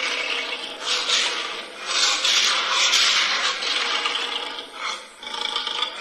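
Male lion snarling in a run of rough, raspy, breathy bursts, about one a second.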